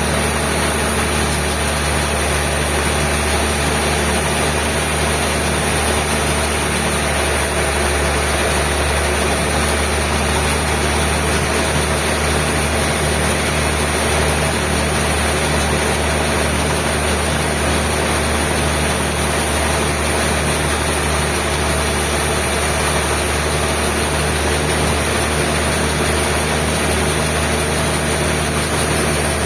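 Sawmill machinery running steadily: an even, engine-like drone with a strong low hum that holds without a break or change.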